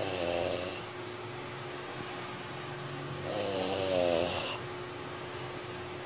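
A sleeping person snoring: two snores about three seconds apart, one at the start and one about three seconds in, each lasting about a second, over a faint steady hum.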